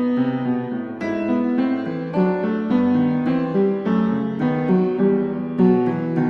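Gentle piano music, with single notes struck about every half second over sustained lower notes.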